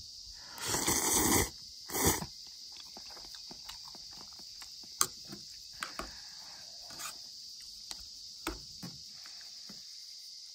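Instant ramen noodles slurped in two loud pulls, followed by scattered light clicks and taps of chopsticks and a wooden spoon against a metal ramen pot as the noodles are stirred. A steady high insect drone runs underneath.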